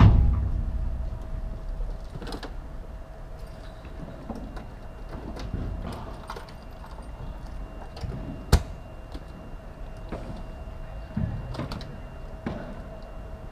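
Padel rally: short sharp knocks of the ball off rackets and the glass walls every few seconds. The heaviest knock, with a low rumble, comes right at the start, and a very sharp crack comes a little past halfway. A faint steady hum runs underneath.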